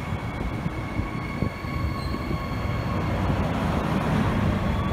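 A Transperth B-series electric train moving along the platform, its traction motors giving several steady whining tones over the rumble of the wheels on the rails. Near the end the whine starts to rise in pitch as the train gathers speed.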